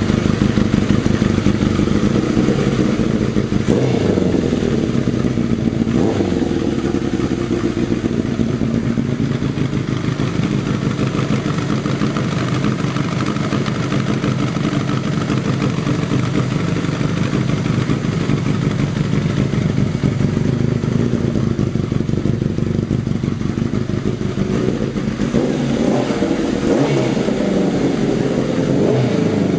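Air-cooled motorcycle engine with pod air filters and a short exhaust, running on the bench at a fast idle. The throttle is blipped about four and six seconds in, and near the end the revs rise and fall several times.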